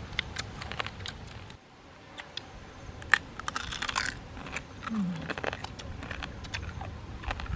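Boiled crab shells cracking and crunching as they are bitten and broken apart, with many scattered sharp clicks and a denser crackling crunch about halfway through.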